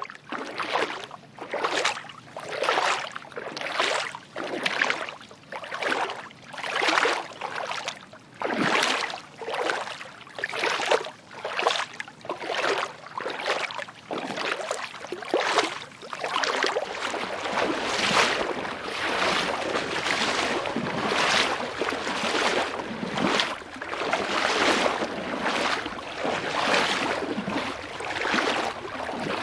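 Water flowing and splashing in rhythmic surges, about one a second. About halfway through it settles into a fuller, more continuous rush.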